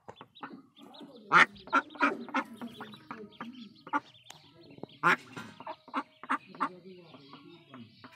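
Mother duck calling in short, irregularly repeated quacks at her nest, the loudest about one and a half, two and five seconds in.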